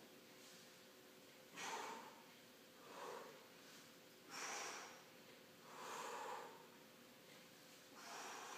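A man breathing hard with the effort of lifting a dumbbell: short, faint puffs of breath about every one and a half seconds, in rhythm with his reps.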